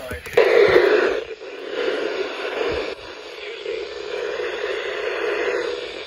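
Static hiss from a weather radio receiver's speaker while the broadcast voice drops out, loudest in the first second and then steady.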